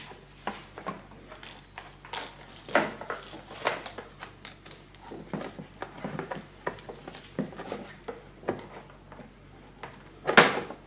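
Hand-handling noises from a lawnmower's plastic cover and corrugated cable conduit being fitted back in place: irregular rustling, scraping and light knocks of plastic, with one louder knock near the end.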